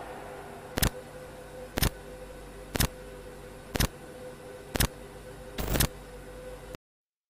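Countdown sound effect: a sharp tick once a second over a steady hum, the last tick doubled. Then the sound cuts off suddenly.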